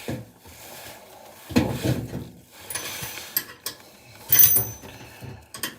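Metal spanner clinking and scraping against a bolt on a new washing machine as the bolt is turned out, with a sharp ringing clink about four and a half seconds in.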